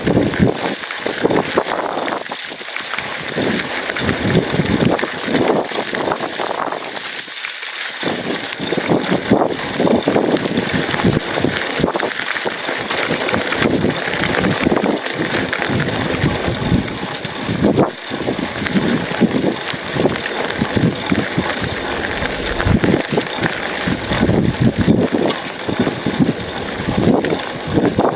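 Wind buffeting the microphone in irregular gusts as a mountain bike rides along a gravel dirt track, with a steady hiss of tyres and rattle from the bike on the rough surface.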